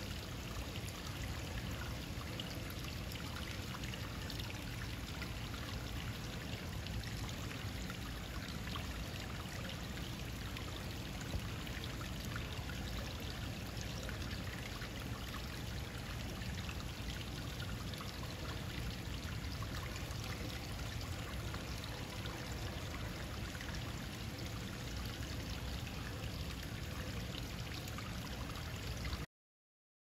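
Steady rush of running water, like a stream or small waterfall, that cuts off abruptly near the end.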